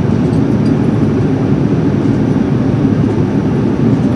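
Steady low rumbling cabin noise of a jet airliner.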